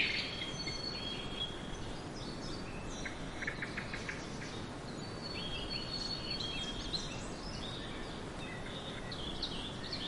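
Small birds chirping in short, scattered calls over a steady background hiss, with a quick run of rapid chirps about three seconds in.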